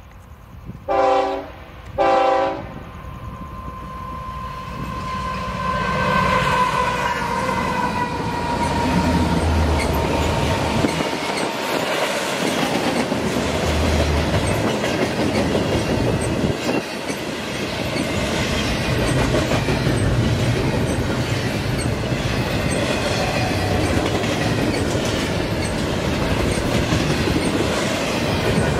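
Two short blasts of a Union Pacific diesel locomotive's air horn about a second apart. Then the train comes by: a whine that falls in pitch, and the steady rumble and clatter of double-stack container cars rolling over the rails.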